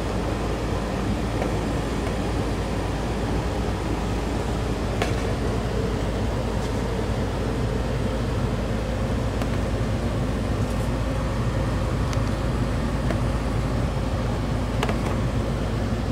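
Steady running hum and rush of a Rheem RGRM high-efficiency condensing gas furnace firing, its motors and air flow going evenly, with a few faint clicks.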